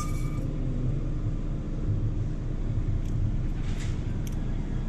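Steady low background rumble, with a few faint clicks from handling the syringe and damper.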